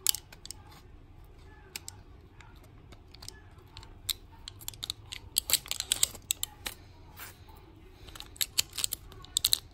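Foil-backed plastic blister pack being peeled open by hand: a scatter of small crackles and clicks, thickest about halfway through and again near the end.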